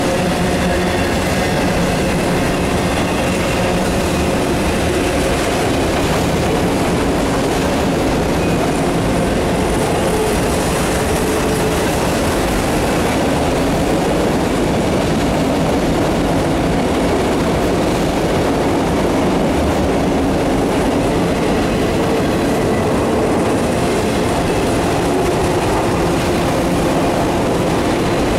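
Freight train of enclosed autorack cars rolling past at close range: a steady, loud noise of steel wheels on rail with some clickety-clack over the rail joints.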